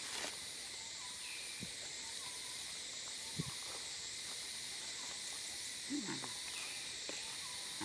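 A steady, high-pitched insect chorus whose top band swells and fades about once a second. A few faint knocks, and one short low vocal sound about six seconds in.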